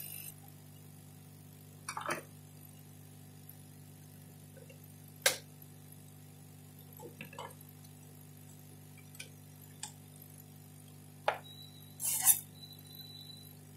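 Light clicks and knocks of computer parts and small tools being handled on a workbench, about seven in all a second or two apart, the loudest near the end, over a faint steady low hum.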